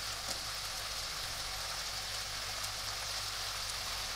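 Carrots, onion and meatball slices sizzling steadily in oil and a little water in a wok, a fine crackling hiss, as cauliflower florets are tipped into the pan.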